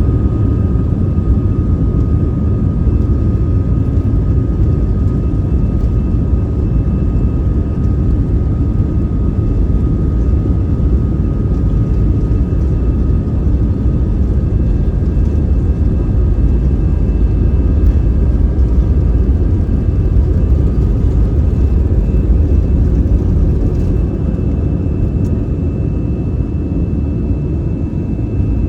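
Airliner engine drone and rumble heard from inside the passenger cabin during takeoff: a loud, steady low roar with a faint steady whine above it.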